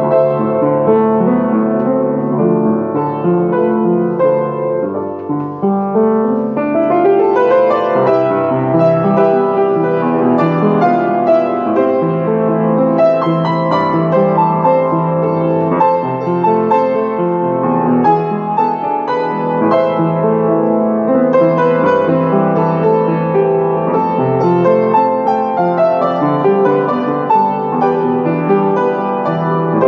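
Upright piano played solo, a medley of Filipino classic songs in a flowing, continuous style, with a rising run of notes about six seconds in.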